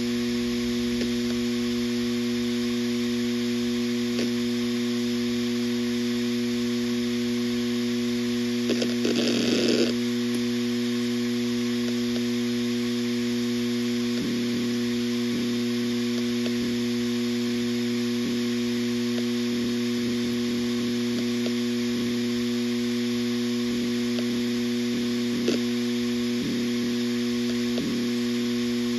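Western Digital RE 4 TB 7200 RPM hard drive spinning with a steady hum, its heads seeking in scattered soft clicks, with a short burst of busier seek noise about nine seconds in. A buzzing rattle runs through the hum because the recording phone is resting loosely on the drive.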